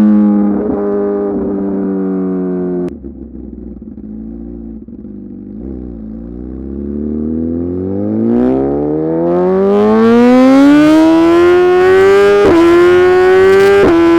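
Suzuki GSX-R 1000 R inline-four through a full titanium SC-Project exhaust. The engine note falls, drops sharply about three seconds in as the throttle closes and settles low, then revs up steadily under acceleration, with two quick upshifts near the end.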